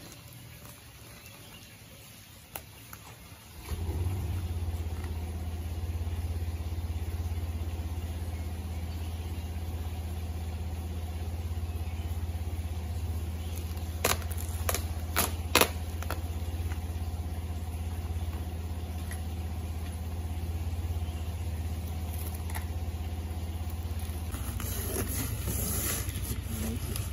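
A motor starts about four seconds in and runs with a steady low hum. A few sharp clicks come about halfway through.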